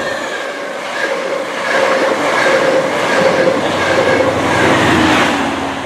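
Chiltern Railways train of a Class 68 diesel locomotive and a Class 82 driving van trailer passing through the station. The rolling noise of wheels on rail builds to a peak about five seconds in, with a lower tone that drops in pitch near the end.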